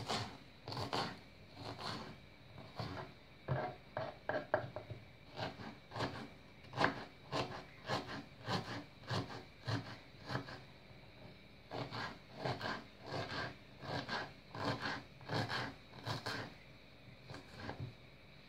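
Kitchen knife chopping a red onion on a wooden cutting board: a run of irregular knocks of the blade on the board, about two a second, stopping shortly before the end.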